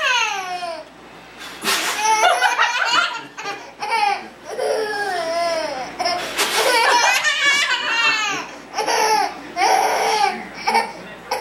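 A toddler laughing hard, mixed with adults laughing, in several bursts with short pauses between.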